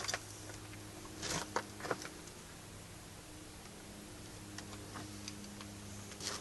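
A few faint knocks and a short rushing noise in the first two seconds, then a steady low electrical hum.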